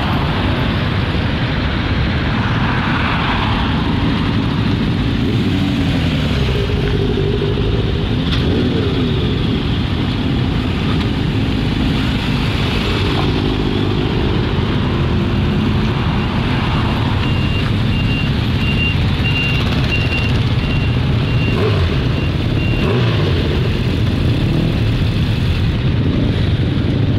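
A column of many motorcycles running past together, several engines revving up and down over one another. A high-pitched beeping sounds for several seconds in the middle.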